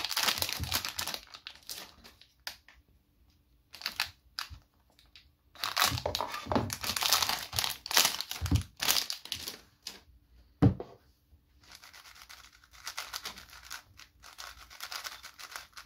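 Clear plastic wrap crinkling and tearing as it is pulled off a 5x5 speed cube by hand, in irregular rustling bursts with one sharp snap about ten and a half seconds in. Lighter clicks near the end as the unwrapped cube's layers are turned.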